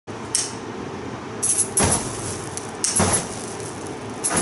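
Several sharp clicks and pops from a long utility lighter being sparked, and a flame catching on a lump of bread, over a steady hiss.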